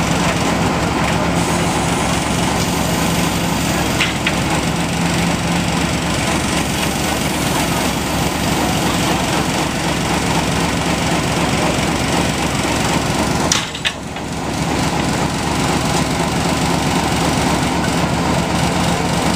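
Train locomotive's engine running steadily close by, with a low steady hum that fades out about six seconds in. The sound dips briefly about fourteen seconds in.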